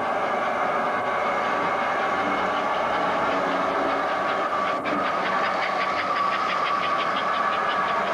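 American Flyer S-gauge model trains running on the layout: a steady mechanical whir with a constant high whine. A single sharp click comes just before the middle, and after it a fast, even clicking of about five a second as cars roll over the track.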